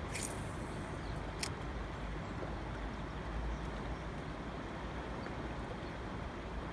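Steady rushing of river rapids mixed with wind buffeting the microphone, with two short sharp clicks about a quarter second and a second and a half in.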